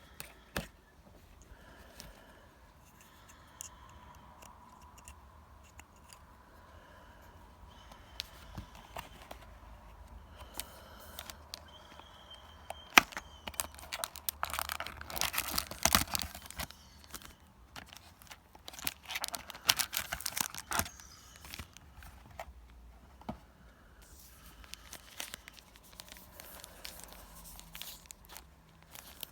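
Yu-Gi-Oh booster pack wrappers being torn open and crinkled by hand, loudest in two spells about halfway through, with quieter rustling and handling around them.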